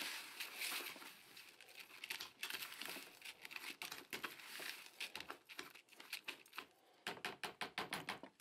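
A spoon stirring damp panko breadcrumb and creamed corn packbait in a plastic bucket: faint, irregular crunchy scraping and rustling. Near the end it speeds up into a quick run of strokes, about six a second.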